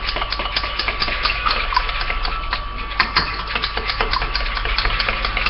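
A spoon beating an egg in a cup: quick, irregular clinks and taps, several a second.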